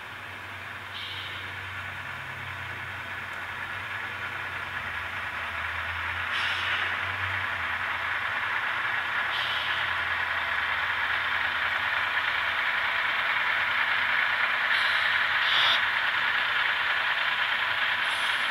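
N-scale model train running past: the locomotives' small motors and the wheels on the track make a steady whirring hiss that grows louder as the train nears, with a few brief clicks.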